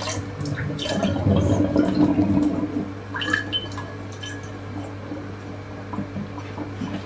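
Water splashing through boiled chanterelles in a plastic colander as they are rinsed and stirred by hand. After about two and a half seconds it eases to a thin trickle and drips draining from the colander into the steel sink.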